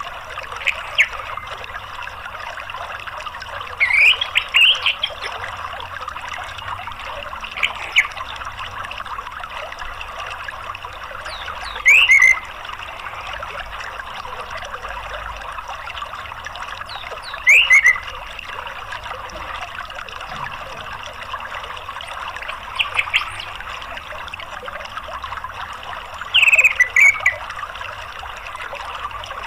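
Steady running water like a stream or waterfall, with short bird calls every few seconds, about seven brief bouts of quick downward-sweeping chirps that stand out above the water.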